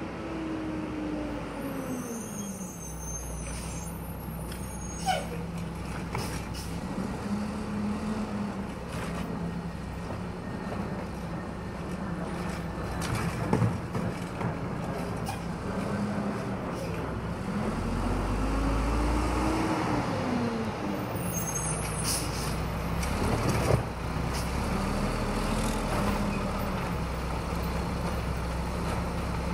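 Automated side-loader garbage truck working its way along the curb: its diesel engine revs up and down several times over a steady idle, with a few short air-brake hisses, while its arm lifts a cart to tip it into the hopper near the end.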